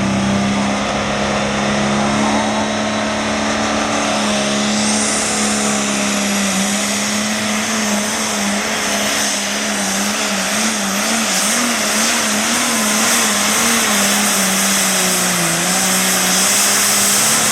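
Super Farm class pulling tractor's turbocharged diesel engine held at full throttle through a pull, one steady pitch with a high hiss building about five seconds in. The pitch wavers up and down in the second half, then the sound cuts off sharply at the end as the run ends.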